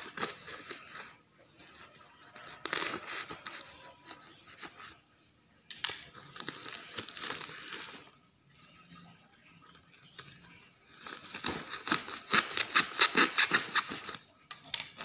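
Black plastic wrapping and clear packing tape around a parcel crinkling and tearing as it is unwrapped by hand, in several bursts, with the loudest and densest crackling near the end.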